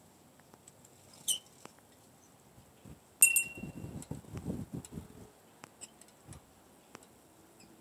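Handling noise from a handheld camera: scattered faint clicks, one sharp click with a brief ring about three seconds in, then about two seconds of low rumbling as the camera is moved.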